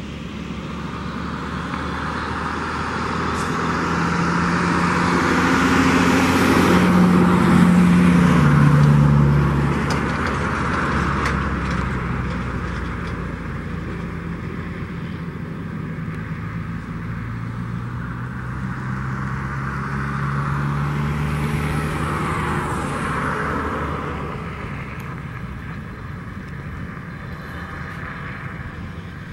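Boeing 737-700's CFM56 jet engines running as the airliner rolls along the runway, growing louder as it nears and passes, with a low engine tone that drops in pitch as it goes by. The sound eases off, swells again, then fades.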